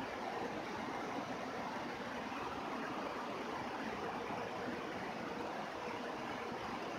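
Steady rain falling: an even hiss of countless drops that neither rises nor falls.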